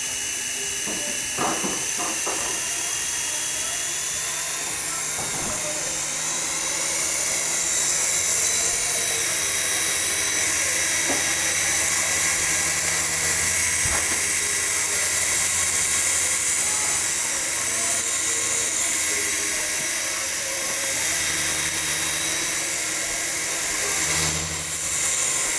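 Electric motor and spinning rotor blades of a Protocol remote-control helicopter in flight, giving a steady high-pitched whine over a low hum. It grows a little louder about four seconds in, then holds.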